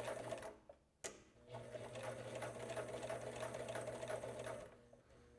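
Heavy-duty walking-foot sewing machine stitching through a thick fold of fabric and webbing: it runs briefly, stops, gives a single click, then runs again with an even stitch rhythm for about three seconds before stopping near the end.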